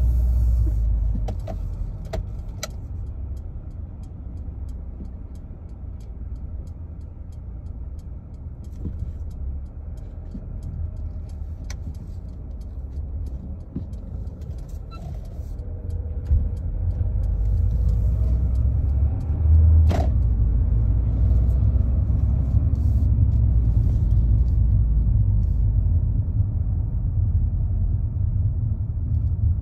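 Low, steady road and engine rumble of a car, heard inside the cabin while driving. It grows louder about halfway through, with a few light clicks near the start and one sharp click about two-thirds of the way through.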